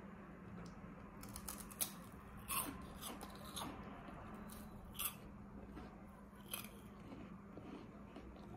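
Crisp homemade oil-puffed chips being bitten and chewed: a few separate crunches, faint and spaced irregularly a second or so apart.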